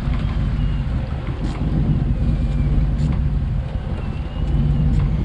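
Fishing boat's engine running steadily at low speed, a constant low hum, with wind buffeting the microphone.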